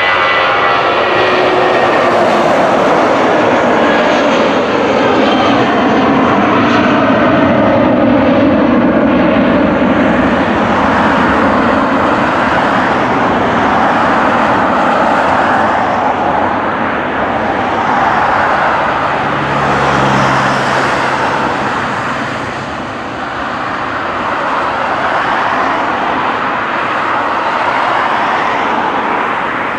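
Twin jet engines of a British Airways Airbus A320-family airliner at takeoff power as it lifts off and climbs away. A steady roar whose whining tones fall in pitch over the first few seconds as the aircraft passes, then carries on as it recedes.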